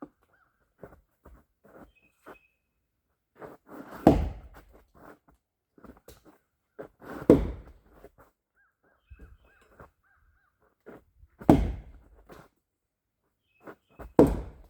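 Axe chopping into a rotten tree: four heavy dull strikes about three to four seconds apart, with lighter knocks between them.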